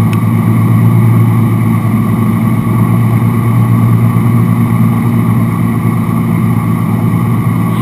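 Wake boat's inboard engine running steadily under way at surfing speed, a constant low drone, with the rush of the churning wake close behind the stern.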